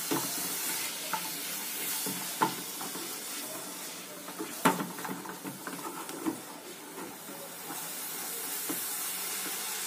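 Chopped tomato, carrot and onion sizzling in oil in a saucepan while a silicone spatula stirs them, with a few sharp taps of the spatula against the pan, the loudest about halfway through.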